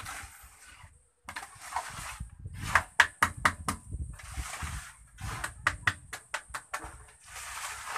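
Wooden float and pointed steel trowel scraping and rubbing over a wet cement floor as it is spread and smoothed. Two runs of quick, sharp taps from the trowel come about three seconds in and again about six seconds in.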